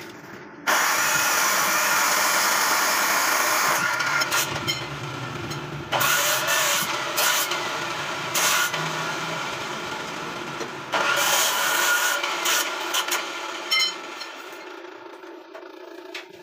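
Abrasive chop saw cutting steel bar: three harsh grinding cuts of two to three seconds each, with sharp metal clinks in the pauses between them.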